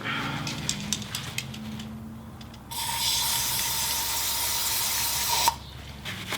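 Degreaser being sprayed onto a grimy engine oil filler cap to clean off old oil gunk: one steady hiss of about three seconds that starts partway through and cuts off sharply. Before it come a few light clicks and rustles of handling.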